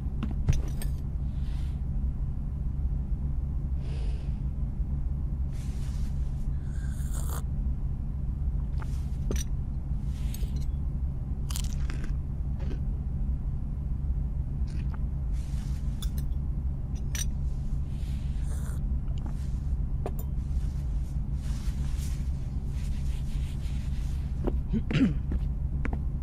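Steady low hum of room ambience with scattered small household noises: a sharp clink about half a second in as a coffee cup is set down on its saucer, then light scrapes and clicks, and footsteps on the floor near the end.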